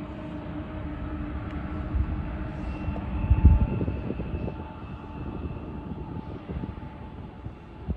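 Diesel locomotives of a Union Pacific freight train running at a distance, a steady drone of several held tones, with wind buffeting the microphone in gusts, the strongest about three and a half seconds in.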